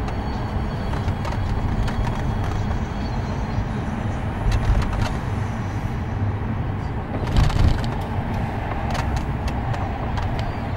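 Car driving through city streets heard from inside the cabin: a steady low rumble of engine and tyre noise, with a few short knocks or rattles. The loudest of these come a little past the middle.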